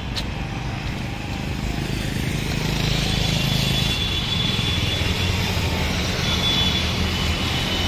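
City street traffic: passing cars and motorbikes on a wide road, a steady rumble and hiss that grows louder after the first couple of seconds, with a faint thin high tone heard twice.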